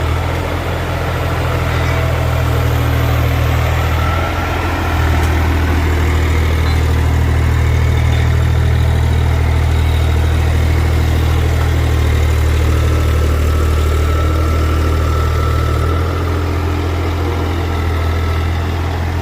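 Engine idling steadily with a deep hum. It gets a little louder about five seconds in and drops back near the end.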